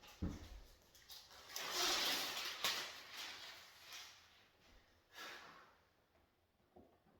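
Peel-and-stick carpet tiles being handled and laid: a rustling, scraping noise about a second and a half in, with a few light knocks, then quieter.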